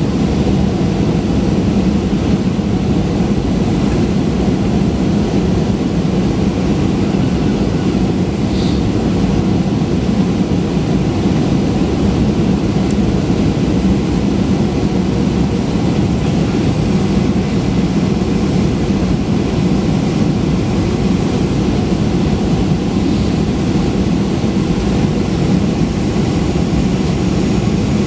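Steady cabin drone of a Boeing 737-800 in flight during descent, heard from a window seat beside the wing: the CFM56 turbofan's hum and the rush of air over the fuselage, low and even with no change in pitch.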